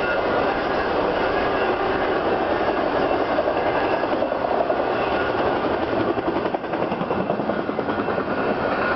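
Intermodal freight train of trailers on flatcars rolling past, a steady rush of steel wheels on rail with fast irregular clicking. The end of the train goes by in the second half, and the rolling noise carries on as it moves away.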